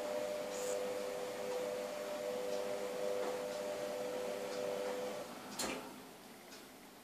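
Steady hum of a kitchen appliance, with a few pitched tones, that stops about five seconds in, followed shortly after by a single sharp click.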